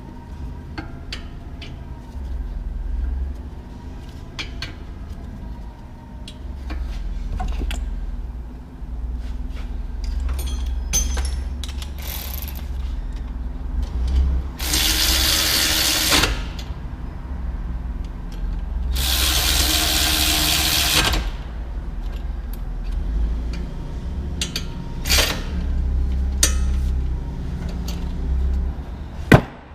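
Hand tools at work on a car's front wheel hub: ratchet clicks and metal knocks over a steady low hum, with two loud bursts of a power tool, each about two seconds long, around the middle.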